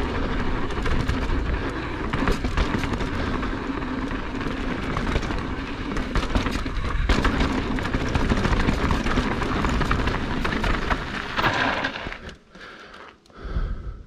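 Mountain bike riding fast down a dirt trail: heavy wind rush on the microphone with tyres on dirt and a constant rattle of small knocks from the bike. The noise drops off sharply near the end.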